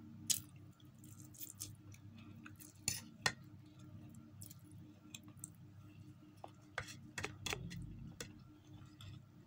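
Eating instant noodles with a fork from a plate: scattered sharp clicks and clinks of the fork on the plate, with the mouth sounds of eating, the loudest about a third of a second in and around three seconds in. A faint steady low hum runs underneath.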